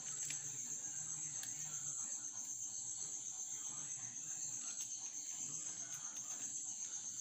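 A cricket trills steadily, one continuous high pulsing chirp. Under it are a faint low hum and the soft crinkle of butter paper being peeled off a cake.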